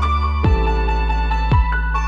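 Electronic background music with a deep kick drum, held bass notes and a high synth melody.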